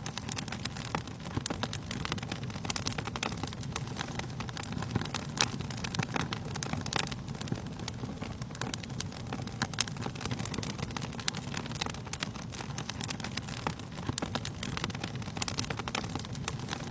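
Wood fire crackling in a fireplace: frequent irregular pops and snaps over a steady low rumble of the flames.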